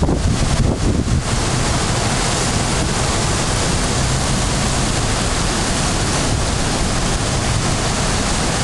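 Strong typhoon wind, buffeting the microphone in uneven gusts for about the first second, then a steady, even rushing hiss.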